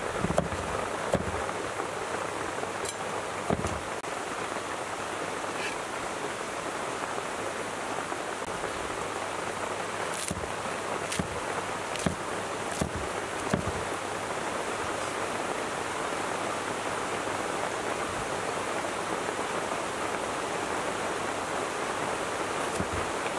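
A cleaver chopping vegetables on a wooden chopping board gives a few sharp knocks, several near the start and a run of them between about 10 and 14 seconds in. They sit over a steady hiss that runs throughout.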